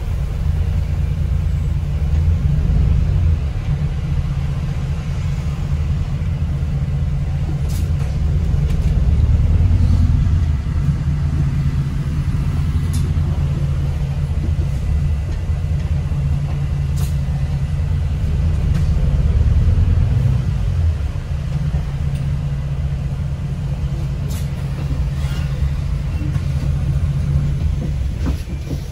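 Alexander Dennis Enviro400 MMC double-decker bus on the move, heard from inside the cabin: a steady low engine and drivetrain rumble that swells and eases a few times, with a few light clicks and rattles.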